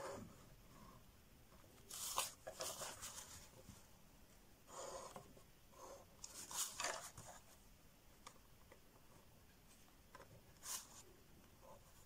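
A pen drawn along a ruler on paper, with the ruler and sheet shifting and rustling: a handful of short scratchy strokes a few seconds apart.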